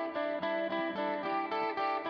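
Background music: a plucked guitar tune of quick, evenly spaced notes.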